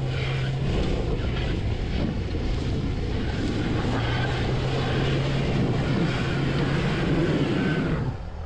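Off-road pickup's engine revving hard and holding high revs under heavy load as it claws up a muddy slope, wheels spinning and flinging mud. The sound drops away abruptly near the end.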